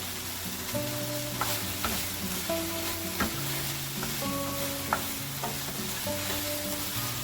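Chicken, mushrooms and vegetables sizzling in hot avocado oil in a pot while being stirred, with a few sharp clicks of the utensil against the pot. Soft background music with held notes plays underneath.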